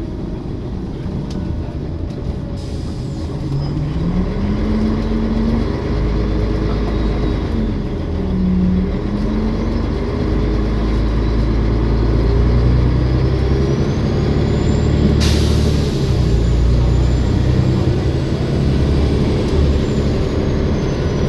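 Olympian double-decker bus running under way, its engine note rising and falling as it pulls and changes gear, with a high turbo whine gliding up and down in the second half. About 15 seconds in comes one short, sharp burst of air hiss from the air brakes.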